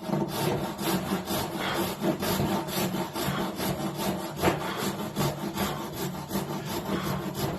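Hand panel saw cutting through timber in steady, even back-and-forth strokes: a relief cut in the waste of a housing joint so the waste chisels out more easily.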